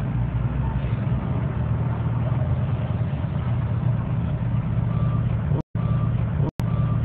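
Steady low rumble like a vehicle engine idling, broken by two brief dropouts to silence near the end.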